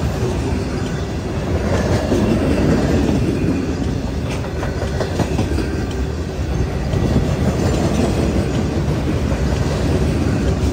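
Loaded ballast hopper cars of a freight train rolling past: a steady heavy rumble of steel wheels on rail, with wheels clicking over rail joints.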